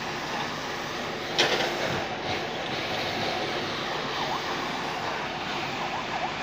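Fire engine's engine running steadily, with a single sudden sharp knock about a second and a half in.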